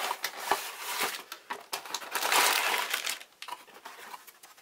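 A cardboard plastic-model-kit box being opened: the lid rubs and scrapes as it comes off, and the plastic bags of sprues inside crinkle. It is loudest about two to three seconds in, then quieter.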